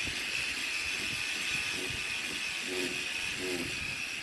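Stick (arc) welding on a steel channel frame: the arc gives a steady, crackling hiss.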